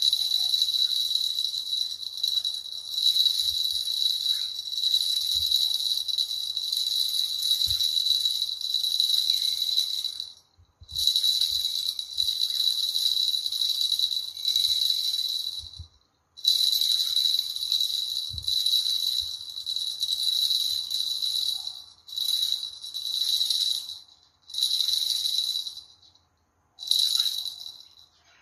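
Small bells on a hanging bird toy jingling without a break as a conure shakes the toy. The jingling comes in long runs with brief pauses at about ten seconds in, and again at sixteen and twenty-two seconds. After that the bursts get shorter and the pauses more frequent, and it stops near the end.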